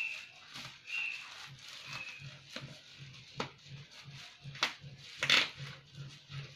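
Black plastic wrapping crinkling and packing tape tearing as a heavily taped parcel is pulled open by hand, with several sharp rips, the longest a little past the middle. Three short high chirps sound about a second apart near the start.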